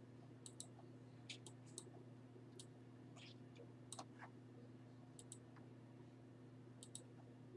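Faint, irregular clicks of a computer keyboard and mouse being worked, over a steady low electrical hum.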